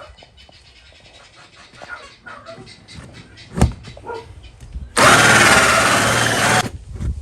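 Cordless power drill running hard for under two seconds near the end, boring through the house wall and its siding, after a few scattered knocks and one sharp knock.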